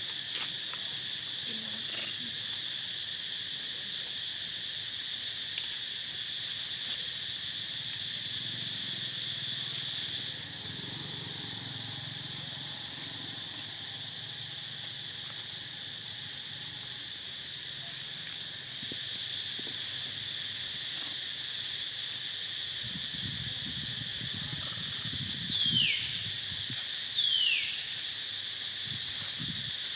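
Steady insect chorus of crickets buzzing throughout. Near the end come two short, high-pitched cries from a monkey, each falling in pitch, about a second and a half apart; they are the loudest sounds.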